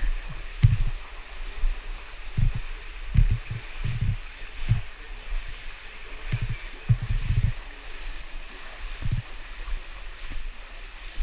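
Steady rushing of a cave stream, with irregular low thumps and knocks close to the microphone.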